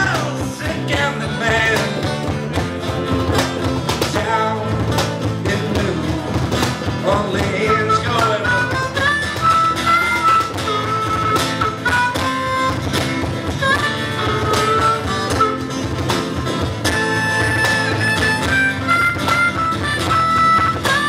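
Live harmonica solo played into a handheld microphone, with bending notes, over strummed acoustic guitars, bass guitar and a cajon beat.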